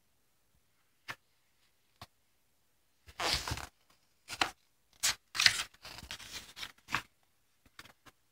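Stiff cardboard pages of a children's board book being turned and handled: two light taps, then from about three seconds in a run of rustling, flapping page noises.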